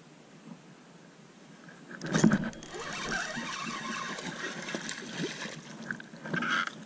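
A sudden loud knock about two seconds in, followed by a busy, steady rattle and scraping as a fishing reel is cranked fast to bring in a small hooked largemouth bass.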